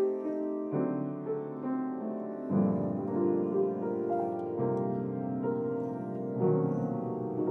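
Piano playing a slow introduction of held chords, a new chord struck about every two seconds.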